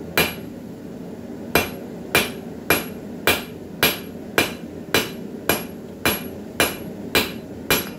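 Blacksmith's hand hammer striking a red-hot steel bar on an anvil, each blow with a bright metallic ring. One blow, a pause of over a second, then a steady run of about two blows a second, twelve in all, forging the end of the bar flat.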